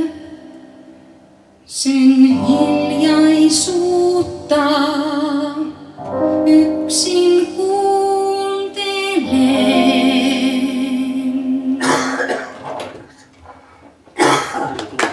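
A woman sings the closing phrases of a slow Christmas ballad with vibrato, accompanied by piano, with a short pause before she comes back in. The song ends, and about two seconds later the audience starts clapping.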